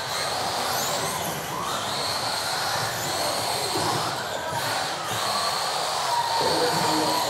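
Several RC off-road buggies racing, their electric motors whining with a pitch that rises and falls as the throttle is opened and closed.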